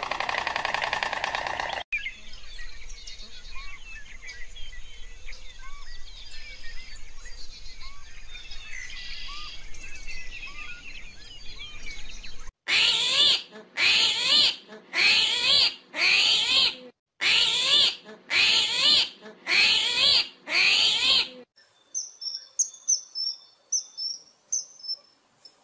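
A run of animal calls. A long stretch of many small chirping calls gives way to goats bleating loudly eight times, about once a second. After that a common kingfisher gives high, thin, short piping calls, faintly and over and over.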